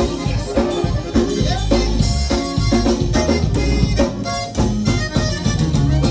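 Conjunto dance music played loud, with accordion, bass and drums keeping a steady beat.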